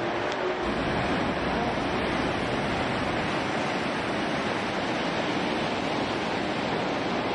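Fast mountain river rushing through a stone-walled town channel, its churning whitewater rapids making a steady, unbroken rush of water.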